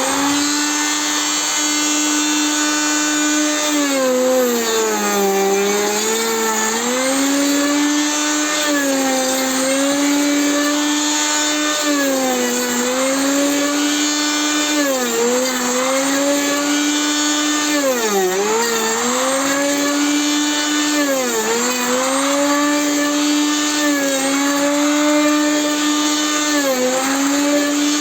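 Router motor of a homemade router-based thickness planer running at high speed with a steady whine, its pitch sagging briefly about nine times as the cutter bites into the wood and then recovering.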